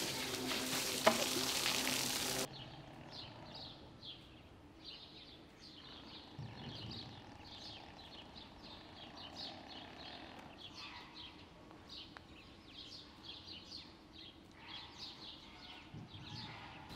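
Water spraying with a steady hiss, which cuts off abruptly after about two and a half seconds. Then small birds chirping faintly, many short high chirps in quick succession.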